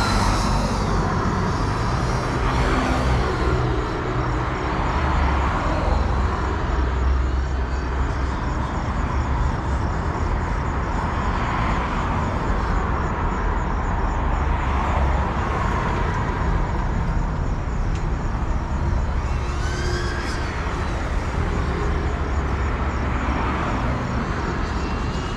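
Steady outdoor rumble like road traffic, with the whine of a small FPV quadcopter's motors gliding up and down in pitch near the start and again about twenty seconds in.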